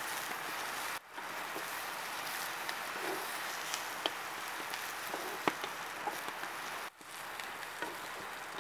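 Sliced onions, chillies and curry leaves sizzling steadily in hot oil in a clay pot, stirred with a wooden spoon that knocks and scrapes against the pot a few times; this is the tempering of the curry. The sizzle drops out briefly twice.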